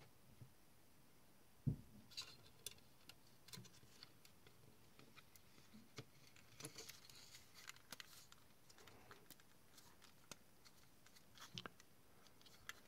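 Faint, scattered small clicks and taps of plastic model-kit parts being handled, as a coupler and its little centering spring are worked into the coupler box of an Athearn flat car kit.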